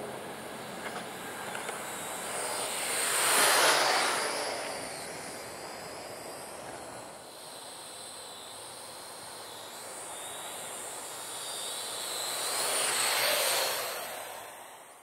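Parrot AR.Drone 2.0 quadcopter's electric motors and propellers buzzing with a high whine, swelling loud as the drone passes close, once about three and a half seconds in and again near the end.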